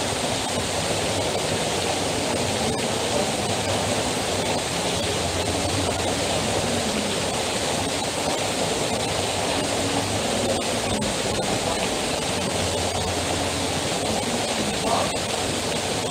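Heavy rain falling and streaming off the edge of an overhead roof canopy: a steady rushing noise with scattered sharp ticks of drops.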